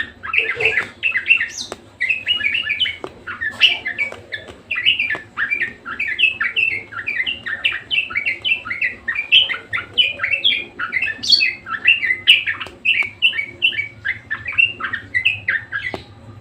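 Budgerigar warbling: a fast, unbroken stream of short chirps and chatter that stops just at the end.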